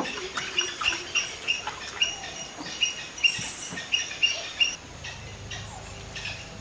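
A small animal chirping over and over, short high calls at about three a second, which stop a little before the end, leaving a faint low hum.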